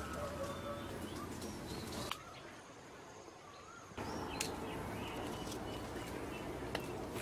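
Wild birds calling in the surrounding woods: short whistled and chirping notes over the rustle, scrape and occasional knock of someone moving over rock and leaf litter. The sound drops to a quieter stretch for about two seconds in the middle.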